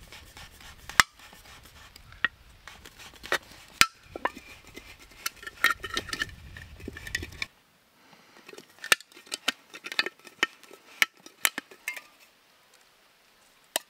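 Thin sheet-metal lid of an empty tin can being pierced and worked into a hole about a centimetre wide: irregular metallic clicks, scrapes and clinks, with a few sharp knocks.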